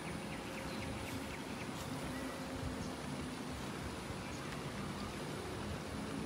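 Steady low hum of distant traffic, with a quick run of faint high chirps near the start.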